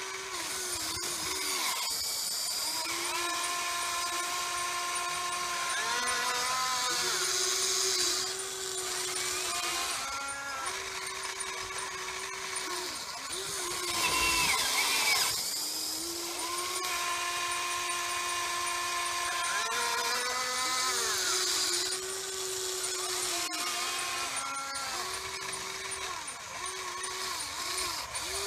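Electric motors and gearboxes of a Huina 580 RC excavator whining as the boom, arm and bucket move, each movement a held tone that glides up or down in pitch as it starts and stops. A louder scraping rush midway, around the time the bucket works in the soil.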